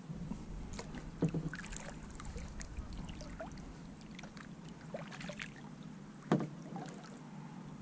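Kayak handling noises: scattered small knocks and clicks against a plastic kayak on the water, with a sharper knock about a second in and a louder one past six seconds.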